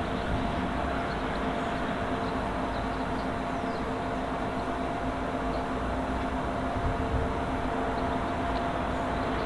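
Steam locomotive and its support coach approaching along a main line: a steady rumble and hiss with a faint constant hum, with no separate exhaust beats standing out.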